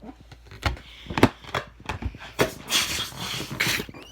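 A few handling knocks and rubs, then about a second of hissing as helium is drawn in from a balloon's neck.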